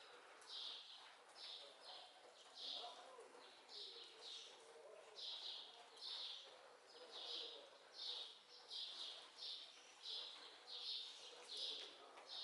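A small bird chirping over and over, short high notes at about two a second.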